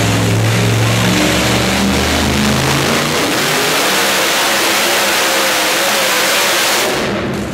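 Two-wheel-drive pulling tractor's supercharged engine at full throttle, dragging the weight-transfer sled down the track: a very loud roar whose note sinks in pitch over the first few seconds, then holds until it falls away near the end.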